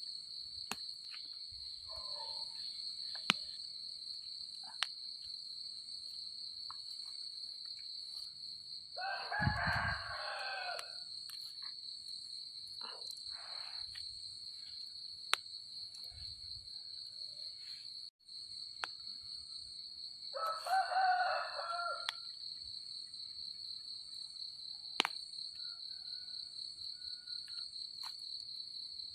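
A rooster crowing twice, once about a third of the way in and again about two-thirds in, over a steady high-pitched drone, with faint scattered clicks and rustles of hands picking among leaves.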